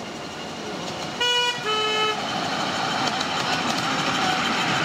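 A miniature ride-on locomotive's horn sounds two short notes about a second in, a higher one and then a lower one. After that the train's wheels running on the rails grow louder as it approaches.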